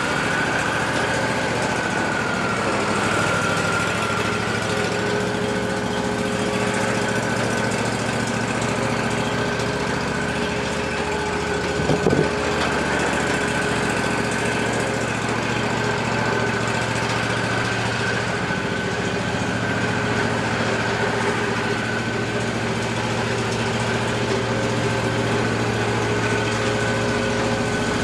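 Wood-Mizer LT40 portable band sawmill running: a steady engine drone with a high whine over it, and one brief clunk about twelve seconds in.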